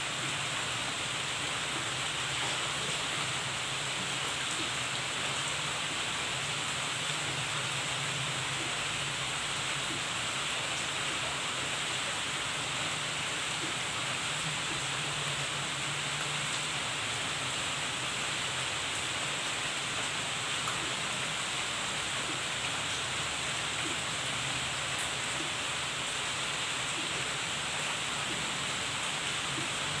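Steady rain falling on garden foliage and a wet stone path, an even hiss with scattered drop ticks.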